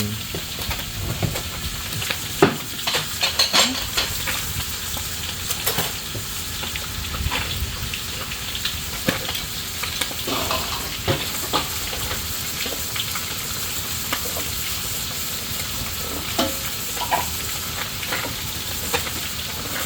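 Food sizzling steadily as it fries in a hot pan, with scattered scrapes and clinks as it is stirred with a utensil, a few of them louder in the first half.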